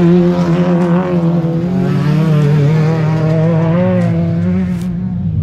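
Autocross race car engines running on the dirt track: a loud, steady drone whose pitch wavers up and down slightly, easing a little near the end.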